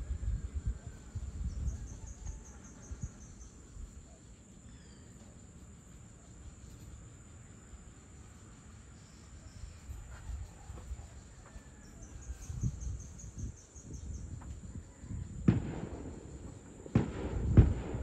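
Distant fireworks going off: low rumbling booms throughout, then a sudden louder burst and a cluster of sharp bangs near the end. Faint insect buzzing and bird chirps underneath.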